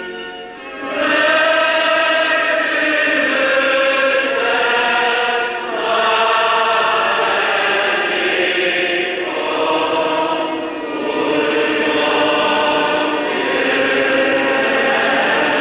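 A choir singing a slow chant in long held phrases, each lasting about five seconds with short breaks between them.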